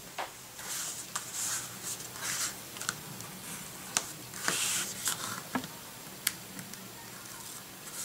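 Hands handling and sliding cardstock on a table: several short papery swishes with light clicks and taps in between, quieter in the last second or two.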